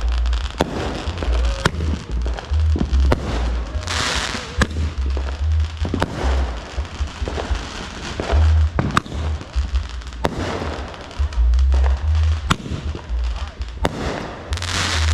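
Consumer fireworks going off: a string of sharp bangs throughout, with hissing, crackling bursts about four seconds in and again near the end. Music with a heavy bass plays underneath.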